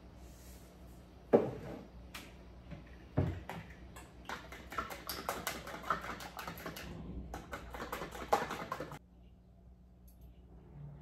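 Kitchen utensils clicking and knocking against dishware while food is prepared. There are two sharp knocks, then about five seconds of quick, light clicking that then stops.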